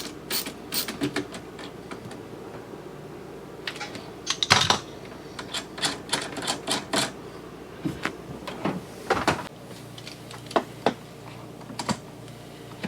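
Irregular sharp clicks and knocks of an RV refrigerator door latch bar being handled and fitted while its depth-adjusting screws are turned, with louder clacks about four and a half seconds in and again near nine seconds.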